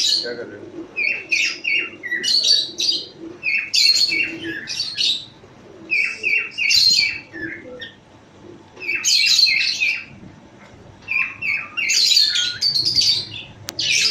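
A bird calling over and over: each phrase is three or four quick, clipped notes followed by a harsh, scratchy squawk, repeated every second or two.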